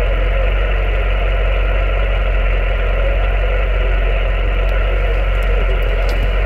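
Steady static hiss from an Alinco DX-70 HF transceiver's speaker, tuned to upper sideband on the 10-metre band, the hiss held within the voice range with nothing above it. A steady low rumble runs underneath.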